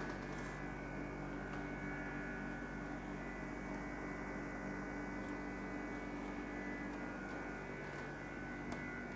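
Steady electrical hum: a low drone with several fixed tones and fainter higher tones above it, unchanging throughout.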